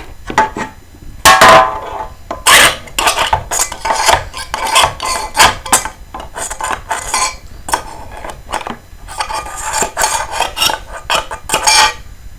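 Paper towels being stuffed into an empty aluminium drink can through a hole cut in its side: a run of irregular scrapes, rustles and knocks of paper and fingers against the thin metal can.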